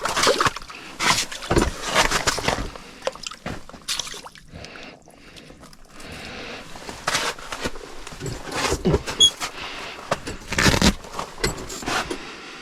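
Water sloshing in an ice-fishing hole, with irregular scrapes and knocks as a crappie is pulled up through the ice and handled.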